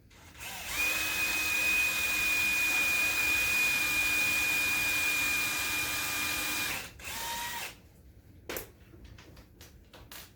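A power drill runs steadily for about six seconds with a high, even whine, stops, then runs again briefly at a lower pitch. A few small clicks follow near the end.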